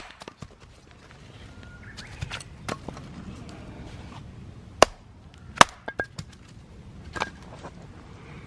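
A few irregular sharp knocks and taps, the loudest a little under five seconds in and again just after, some leaving a short metallic ring.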